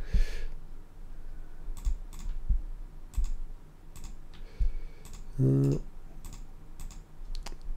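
Scattered single clicks from a computer keyboard and mouse, about a dozen in all, irregularly spaced. A short hum of a man's voice about five and a half seconds in.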